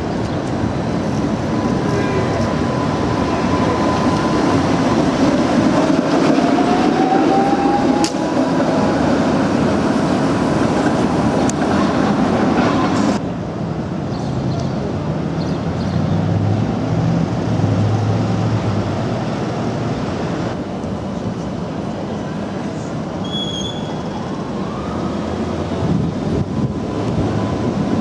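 Red Canal Street streetcars running on their rails, with a continuous rumble of wheels and motors. A rising whine comes through in the first several seconds, and the sound shifts abruptly twice.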